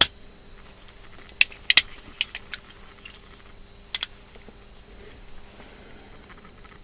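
Leatherman Supertool 300 multitool being handled, its metal blades and tools giving sharp clicks: one at the start, a quick cluster of five or six between about one and a half and two and a half seconds in, and a double click about four seconds in.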